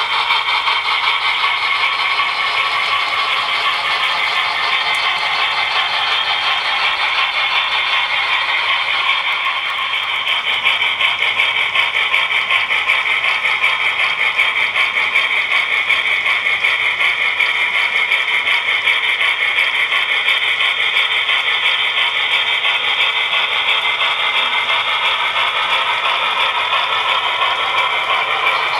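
Model freight train running past: the small metal wheels of the locomotive and cars rattle and clatter steadily on the model track, with a whir from the running gear.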